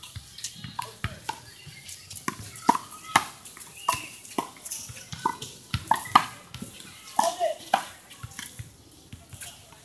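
One-wall handball rally: a small rubber ball is slapped by hand and smacks off the wall and the court in a quick, irregular series of sharp smacks.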